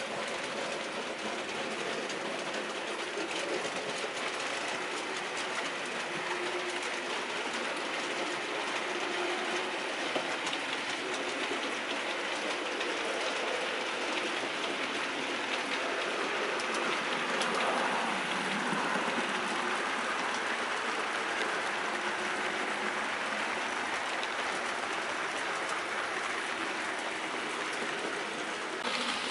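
Model train running on the layout: the locomotive's electric motor whirring and the wheels rolling along the track. It is steady throughout and grows louder a little past halfway, as the train passes nearest.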